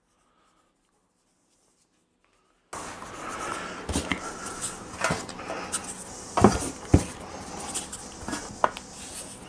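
Silent for the first few seconds, then handling noise with several sharp knocks and taps as dough balls are rounded by hand and set down on a floured metal baking tray.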